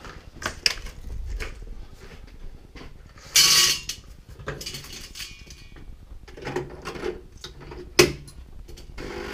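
Kitchen objects being handled: clicks, clinks and knocks, with a short rattling burst about three and a half seconds in and a sharp knock about eight seconds in. A steady appliance hum starts near the end.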